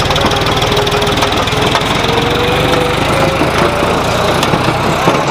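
Diesel tractor engine running as the tractor pulls a loaded trailer past at close range, its steady firing pulses blurring and falling away near the end as it moves off.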